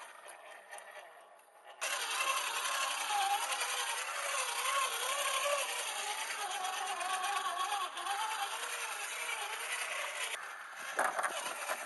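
The 1/10-scale Redcat Gen8 RC crawler's electric motor and gear drivetrain whining, the pitch wavering up and down with the throttle, over a hiss of tyres scraping on rock. It starts suddenly about two seconds in, and a few sharp knocks and clatters follow near the end.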